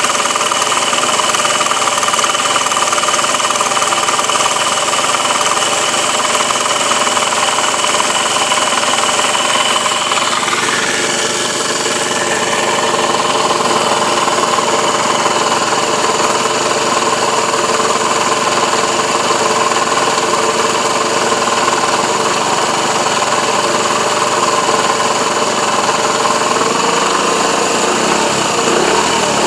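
Benzhou YY50QT 50cc scooter engine running steadily at idle with a vibrating, rattling sound, the fault the owner is showing. Near the end the revs start to rise.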